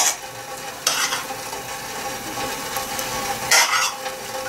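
A metal ladle scraping fried pumpkin, onion and carrot out of a frying pan, in a few short scraping strokes.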